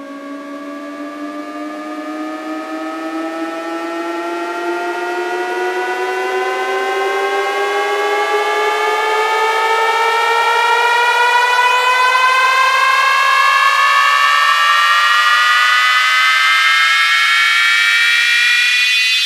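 Electronic synth riser: a layered tone climbing slowly and steadily in pitch and growing louder, with a second layer climbing faster, building toward the drop of a DJ sound-check track.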